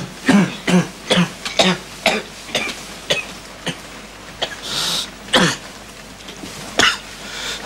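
Repeated coughing: a run of short coughs about two to three a second, then a few single coughs spaced out with a breathy hiss between them.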